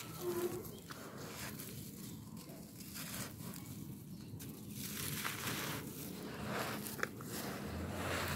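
A dry red-dirt slab crumbling and crunching between the fingers, with loose gritty soil trickling and pattering onto the pile below. There is one sharper crack near the end.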